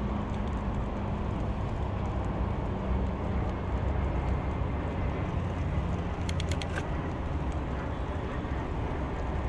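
Wind rushing over the microphone and tyre noise from a bicycle riding along a paved road, with a quick run of clicks about six seconds in.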